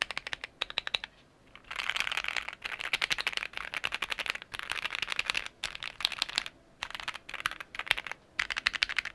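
Modded Keychron Q1 custom mechanical keyboard with Gateron Pro Milky Yellow linear switches being typed on quickly. The keystrokes come in fast runs broken by short pauses.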